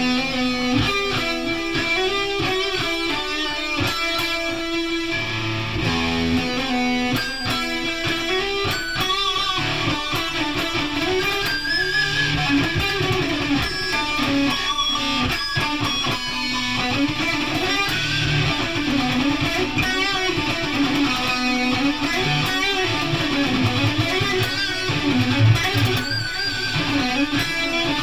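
Guitar music: notes sustained and played continuously, their pitch wavering and bending up and down.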